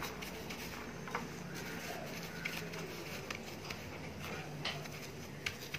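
Soft gritty rustling and scattered light ticks of a fried donut being rolled and pressed in granulated sugar on a plate.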